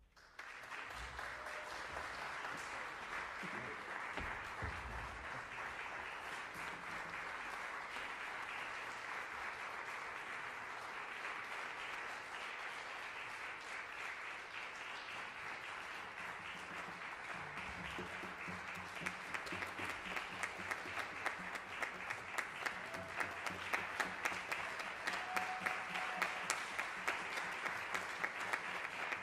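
Audience applauding after a concert piece. The applause breaks out suddenly from silence right at the start and holds steady, and in the second half single louder claps stand out above the rest.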